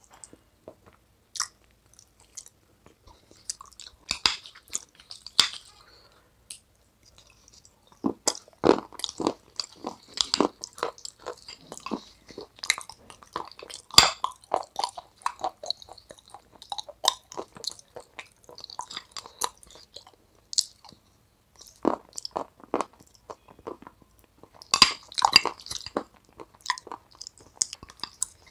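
Close-up mouth sounds of a person chewing and crunching food, in irregular clusters of crackly bites with short pauses. The chewing is densest through the middle and again near the end.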